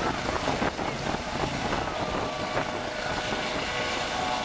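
Eurocopter EC135 helicopter coming in low to land, its rotor and turbines running steadily with a faint whine.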